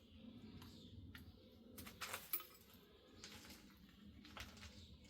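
Faint, scattered metallic clicks and clinks of small hand tools and metal parts being handled on a lathe headstock, the sharpest a little over two seconds in.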